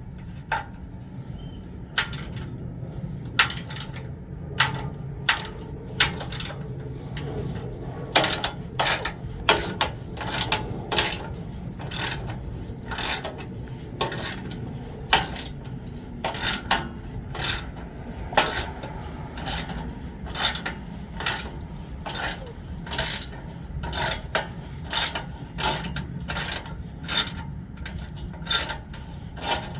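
Hand ratchet clicking as it backs out 12 mm bolts: a run of sharp clicks, spaced and uneven at first, coming faster and more regularly from about a third of the way in.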